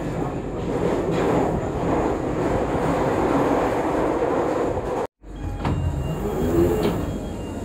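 London Underground train heard from inside the carriage, a loud, even rumble and hiss as it runs into a station. It cuts off abruptly about five seconds in, followed by quieter noise once the doors are open at the platform.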